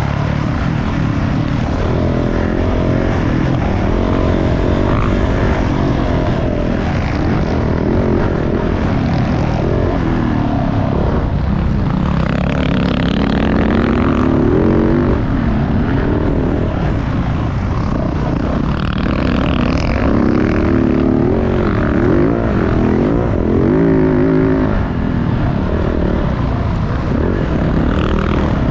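Motocross dirt bike engine revving up and down again and again as it is ridden around the track, over a steady low rumble.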